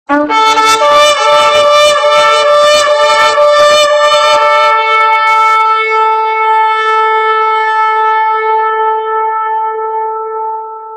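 A big trumpet-type horn sounding one long blast. It starts suddenly on a brief lower note and is rough and buzzy for the first few seconds, then settles into a steady held note that fades toward the end.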